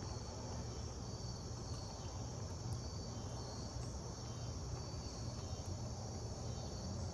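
Steady high-pitched chorus of insects such as crickets, continuous with no breaks.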